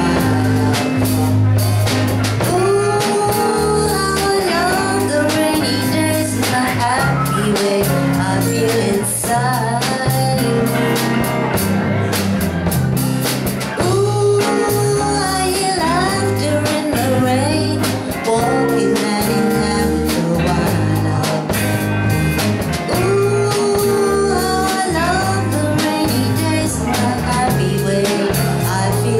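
Live pop-rock band: a woman singing into a handheld microphone over electric guitar, bass guitar and drum kit, with a steady beat.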